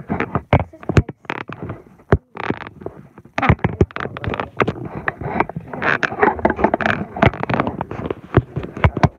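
Handling noise from a phone held close to the face: fingers tapping and rubbing over the microphone, a dense run of sharp clicks with a scraping rustle.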